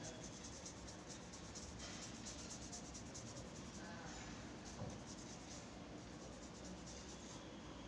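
Faint scratching and rubbing of a drawing pencil on paper: a run of quick, light shading strokes on a charcoal sketch.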